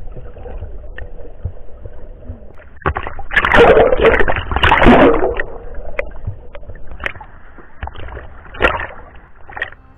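Water heard through a waterproof action camera: a muffled underwater rumble, then a loud burst of splashing and bubbling from about three to five and a half seconds in, followed by lighter sloshing and small splashes at the surface.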